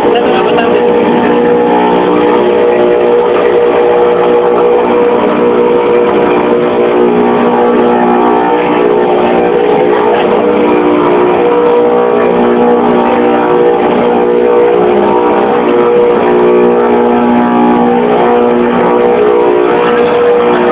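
LX Series CNC router spindle running steadily while its engraving bit cuts into a marble slab: a steady motor whine with a rough cutting noise over it.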